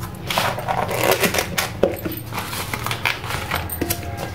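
Clear plastic lids being pressed and snapped onto disposable plastic takeaway food containers: a run of crackling clicks and crinkles.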